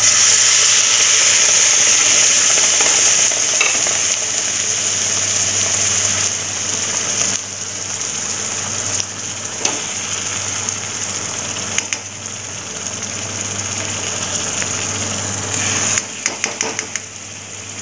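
Wet ground onion-tomato masala paste poured into hot oil in a kadhai, sizzling loudly at once and slowly easing off. Near the end a spatula clicks and scrapes against the pan as the paste is stirred in.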